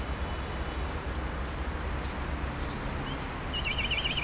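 A bird's quavering, rapidly wavering call starts about three and a half seconds in and lasts about a second, over a steady low rumble.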